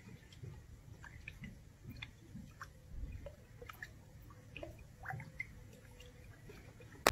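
Faint, scattered wet smacks and drips at the surface of a garden koi pond, made as a koi and a cat meet at the water's edge, over a low background rumble.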